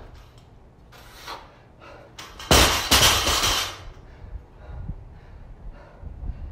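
A loaded 135 lb barbell with bumper plates dropped from the front-rack onto rubber floor mats after a squat clean: one loud crash about two and a half seconds in, a second hit as it bounces, then a rattle of the plates dying away within about a second.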